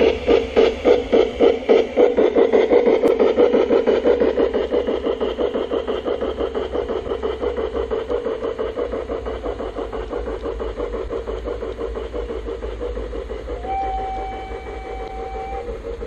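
An LGB IV K garden-railway steam locomotive's mfx sound decoder plays rhythmic steam chuffs as the train pulls away. The chuffs start strong, then come faster and grow fainter as the locomotive moves off. A steady high tone sounds for about two seconds near the end.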